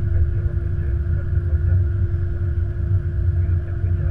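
Flight-deck noise of an Airbus A330-200 rolling out after landing: a steady low rumble from the wheels and engines, with a constant hum over it.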